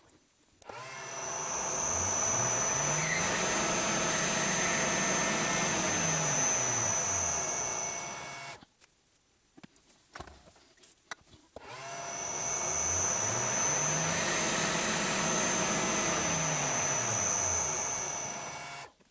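Metal lathe spindle motor started, run for about seven seconds with a steady high whine, and switched off to spin down; then the same again.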